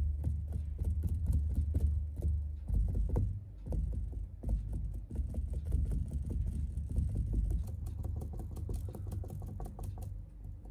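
Thick acrylic paint being dabbed onto a canvas with a piping bag, in quick irregular taps with dull low thumps as the canvas is pressed. The tapping grows softer in the last few seconds.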